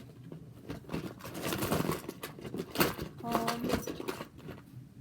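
Plastic spiky sensory rings being handled and set down, a run of rattling clicks and rustling with a sharper knock near the middle.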